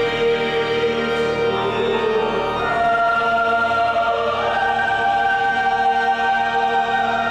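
Choir singing slow, sustained notes with organ, the melody stepping up in pitch a little past the middle.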